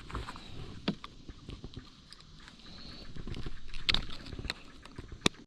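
Scattered sharp clicks and light knocks, a few seconds apart, over a low hiss: fishing tackle and a landing net being handled while a hook is worked free.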